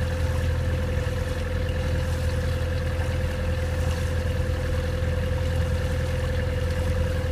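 Sailboat's motor running steadily at low revs: an even low hum with a steady whine above it.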